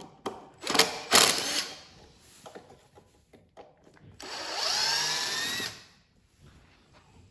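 A power drill/driver spins up with a rising whine and runs for about a second and a half, backing out the screw that holds the log. Before it, about a second in, come a few loud handling knocks and clatter.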